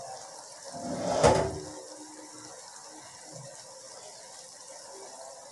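Eggs and chopped bell peppers sizzling in a frying pan on a gas stove, a steady high hiss. About a second in, a single loud knock, something hard set down or bumped.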